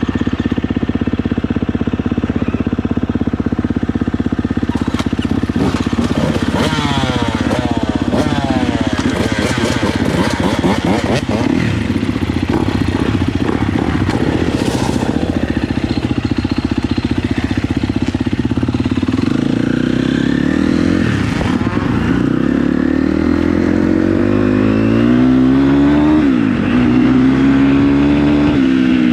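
Dirt bike engines running: one bike idles steadily close by while others rev, their pitch rising and falling several times, more often in the second half.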